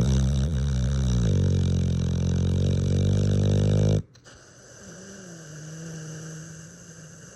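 Loud snoring: one long, droning pitched snore that stops abruptly about four seconds in, then a much fainter wavering tone for a couple of seconds.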